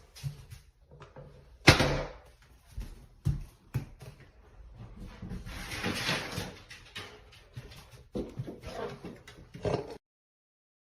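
A series of knocks and thumps in a small room, the loudest about two seconds in. A longer stretch of rustling noise comes in the middle, and the sound cuts off abruptly near the end.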